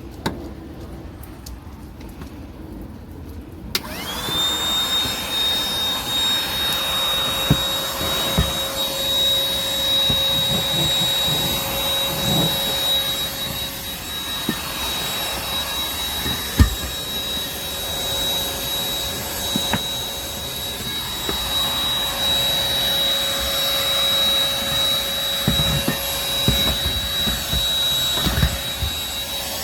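MORCLIN 120W cordless handheld vacuum cleaner switching on about four seconds in, its motor spinning up with a quickly rising whine and then running steadily with a high whine over the rush of air. Scattered knocks and clicks come as it is used.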